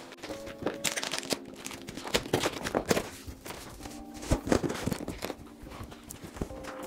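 Cardboard shipping box being torn open: packing tape ripping and stiff corrugated flaps scraping and crinkling as they are pulled back, in a string of irregular scrapes and crackles.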